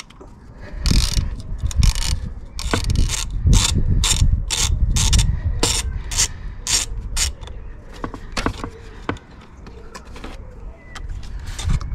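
Ratcheting driver with a T25 Torx bit clicking as it turns out the fastener holding a clip, about two clicks a second for several seconds, with low handling knocks. The clicks stop about seven seconds in, leaving only a few faint ticks.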